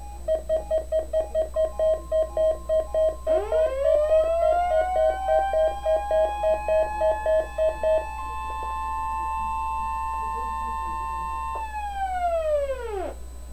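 Emergency Alert System weekly-test alert tones. A rapid mid-pitched beeping, about three to four beeps a second, runs for about eight seconds over a steady higher tone. Partway through, a siren tone winds up, holds, then winds down and stops near the end.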